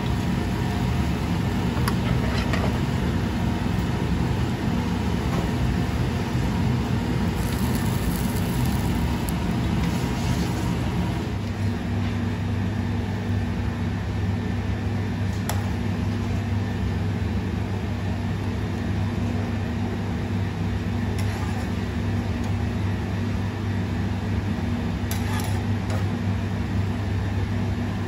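Steady low mechanical hum of a commercial kitchen, whose pitch shifts slightly about eleven seconds in. A few faint clinks of a metal spoon against pan and plates sound over it.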